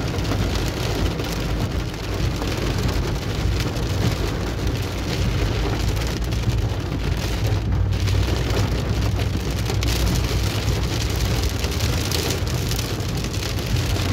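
Heavy rain drumming steadily on a car's roof and windshield, heard from inside the cabin, over a continuous low rumble of the engine and the tyres on the wet road.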